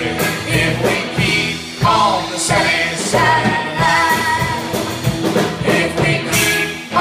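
Live band playing a country song, a woman singing lead over drum kit, electric bass and guitars.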